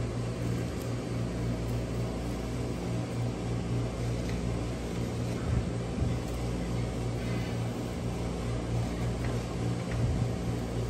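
Steady low mechanical hum of running kitchen equipment, with a few faint light knocks.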